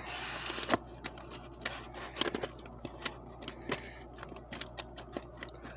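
Metallic clicks and rattles from a Kwikset door knob and its latch being handled and worked, in quick irregular snaps throughout.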